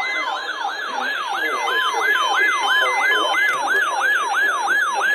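Electronic siren in a fast yelp: a rising sweep that drops back and repeats about three times a second, with faint short beeps above it.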